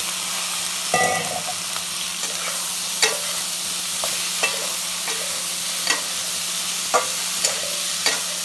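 Spatula stirring chopped sponge gourd into black chickpeas and onion frying in mustard oil in a metal pan. A steady sizzle runs throughout, with sharp scrapes and clinks of the spatula on the pan every second or so.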